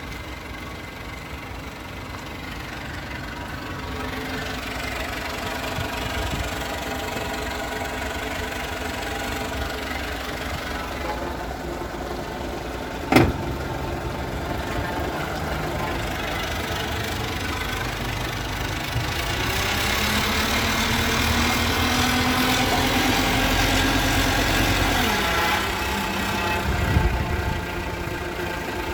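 Houseboat's motor running while manoeuvring away from the berth. It grows louder around twenty seconds in, and its pitch drops near twenty-five seconds. A sharp knock sounds about thirteen seconds in.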